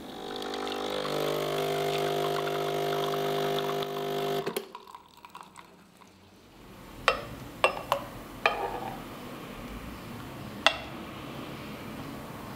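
Espresso machine's pump humming steadily for about four and a half seconds while pulling a shot into a glass, then cutting off abruptly. Five sharp clicks follow over the next few seconds.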